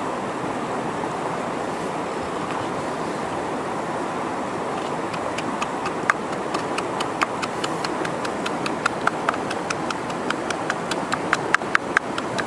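Steady rush of a shallow river flowing over rocks. From about five seconds in, sharp knocks of a pestle pounding salt and red chilies in a small bowl, a few strikes a second, getting louder near the end.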